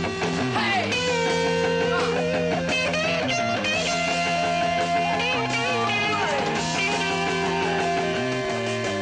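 Rock music with a guitar lead playing long held notes that bend and slide in pitch, over a steady bass line.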